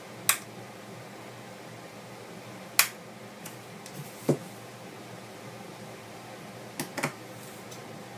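A few sharp clicks and taps of a small screwdriver, screws and plastic phone parts being handled on a work surface. The loudest click comes just under three seconds in, a duller tap a few seconds later, and two quick clicks near the end.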